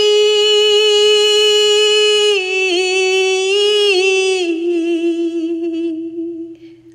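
A woman's voice singing an unaccompanied Urdu naat, holding one long note at the end of a line. It wavers in small ornamental turns around the middle, then fades out near the end.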